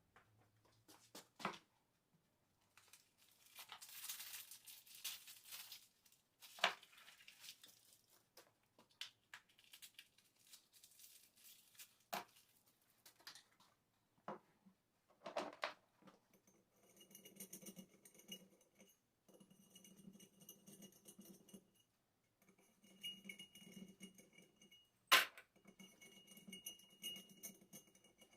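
Small metal parts being handled on a workbench: scattered clinks and knocks, a stretch of scraping early on, and a faint steady whirr with a thin high tone that stops and starts in the second half.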